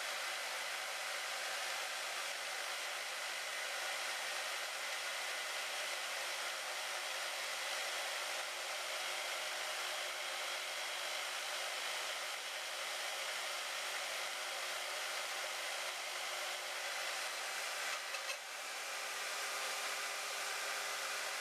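Harbor Freight band saw running steadily through a slow cut, an even whirring hiss of blade and motor. Near the end there are a couple of brief clicks and a short dip in level.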